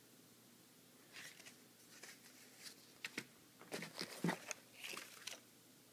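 Faint handling sounds: scattered light rustles and clicks as the contents of a boxed kit are picked up and moved, busiest near the end.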